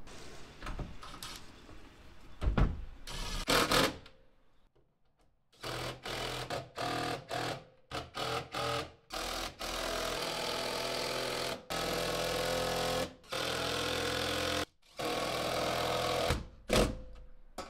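A few knocks as the amp rack board is handled. Then a small cordless power driver runs, first in short trigger pulls and then in longer runs of a second or two, spinning 10mm nuts down to fasten the amp rack to the cab's back wall.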